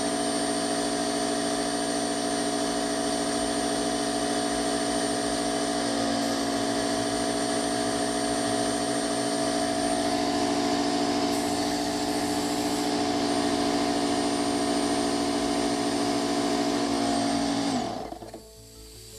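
Parkside PKZ 180 C5 tankless piston compressor, an 1100 W electric-motor air pump, running steadily under load while pumping into a car tyre through an air gun with a gauge. The compressor never manages to inflate the tyre. About 18 seconds in it is switched off and winds down, its pitch falling as it stops.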